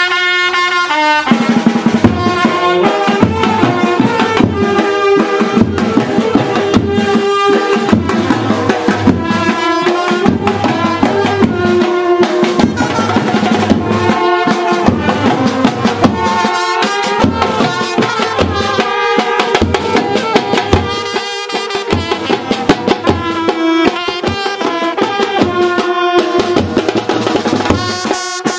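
Music with a steady drum beat and brass horns, as a brass band plays. It starts abruptly.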